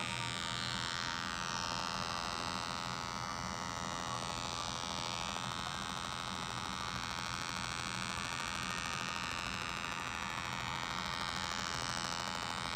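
Low synthetic tones from an online tone generator played through two iPads at once to imitate a Bell 206 JetRanger's main and tail rotors: a steady hum with a stack of overtones that does not change.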